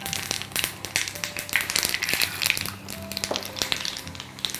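Mustard seeds crackling and popping in hot coconut oil in a small tempering pan, with a stronger sizzle partway through as urad dal is tipped into the oil for the tadka.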